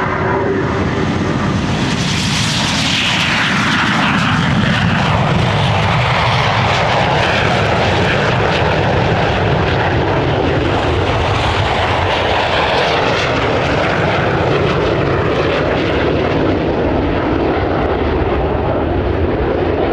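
A pair of BAE Hawk T1 jet trainers taking off and climbing away, their Rolls-Royce Turbomeca Adour turbofan engines running loudly and steadily. About two seconds in the pitch starts to drop, falling over several seconds as the jets pass and draw away.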